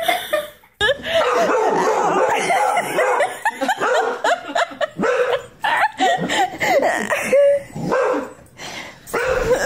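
A dog barking repeatedly.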